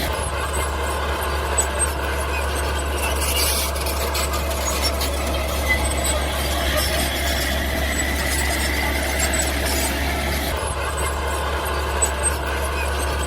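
Mini bulldozer at work: steady machine noise with a high squeal over it, the sound changing abruptly about ten and a half seconds in.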